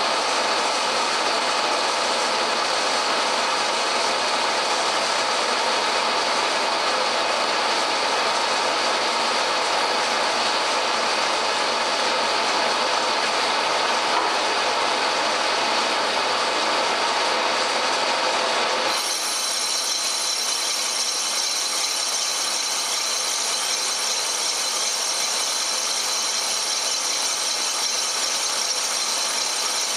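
Pacemaker metal lathe running while a carbide tool turns the outside diameter of a spinning titanium brake bell: a steady machining noise with gear whine. About two-thirds of the way through, the lower, fuller part of the noise drops away and a thinner, higher whine takes over.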